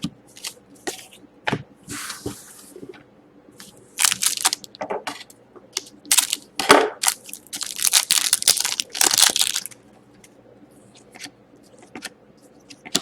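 Hockey card packs and their wrappers being handled: irregular crinkling, crackling and tearing, densest from about four to ten seconds in, with a few sharp clicks.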